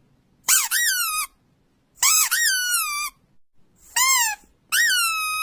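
Rubber squeaky dog toy squeezed four times, each squeak jumping up sharply in pitch and then sliding down; the last, near the end, is held as a long steady squeal.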